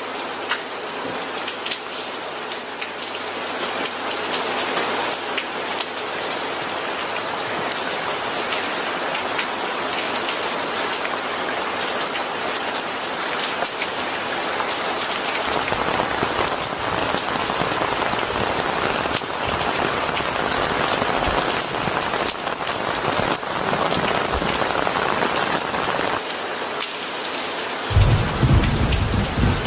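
Steady heavy rain falling on a surface, with a dense patter of individual drops. A low rumble of thunder comes in near the end.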